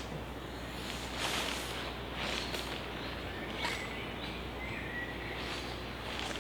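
Woodland background with intermittent rustling and swishing as cord and tarp are handled, and a short high bird call about four seconds in.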